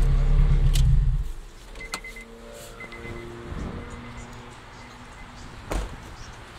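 Turbocharged, straight-piped K24/K20 four-cylinder of an AWD 2002 Acura RSX idling with a loud, steady low rumble, shut off a little over a second in. A thump follows near the end.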